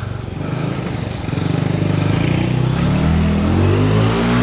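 A motor vehicle passing on the road, its engine growing louder with the engine note rising from about two seconds in.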